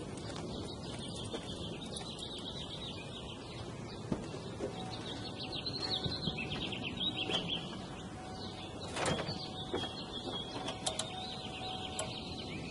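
1994 Ford Taurus SHO engine running steadily. The owner says it has developed a knock since a timing belt change. Rapid high bird twittering comes in short bursts over it.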